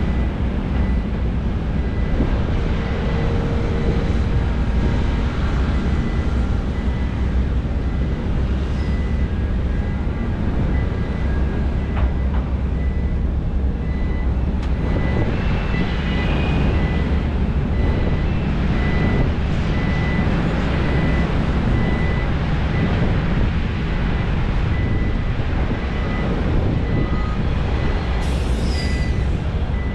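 Heavy diesel machinery, Sany SY500 excavators and dump trucks, running steadily under load, with a high beeping warning alarm repeating about once a second.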